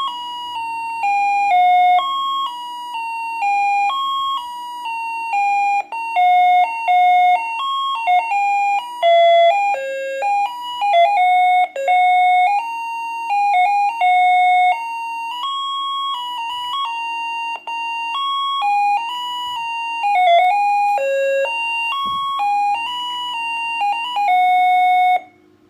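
Maplin electronic doorbell playing its loud monophonic melodies one note at a time, running through its tunes in sequence while its button contact is held closed. It stops abruptly near the end.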